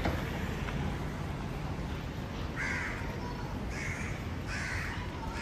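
A crow cawing: three caws about a second apart in the second half, with a fourth starting at the end, over a steady low rumble of street noise.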